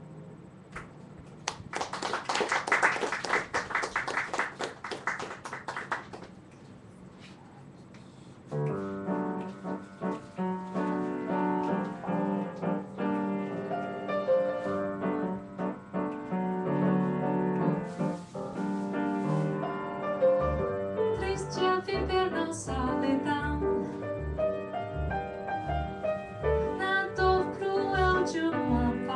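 Applause from a small audience for a few seconds. Then a jazz trio starts a number: solo piano chords and runs, and about two-thirds of the way in an upright bass joins, plucking a steady walking line of about two notes a second, with a woman's singing voice entering near the end.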